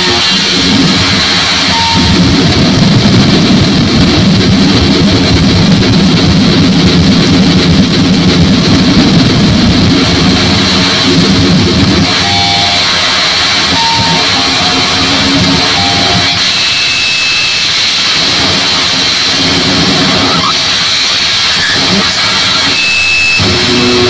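Harsh digital noise music played live: a loud, dense wall of distorted noise with a steady high whine over it. The noise is heaviest in the low-middle range for the first half, then thins out about halfway through, and short electronic beeps and blips are cut in.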